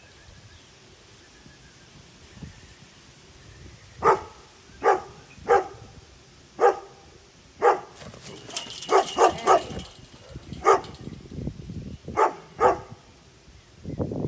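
A dog barking in short, sharp single barks, about a dozen of them starting about four seconds in, with a quick run of three near the middle.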